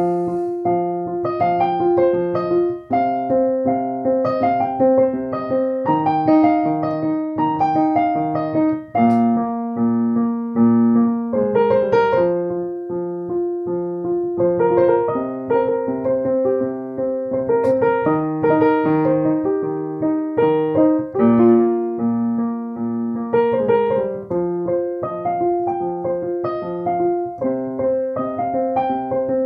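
Alesis Recital Pro digital piano played on its piano voice: a steady, flowing piece with low notes held and changing every few seconds under a repeated figure of higher notes.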